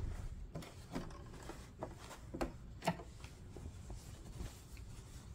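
Cotton fabric rustling and a scattered series of light, irregular clicks as the cloth is handled and pulled out from under a sewing machine's presser foot, with the machine stopped.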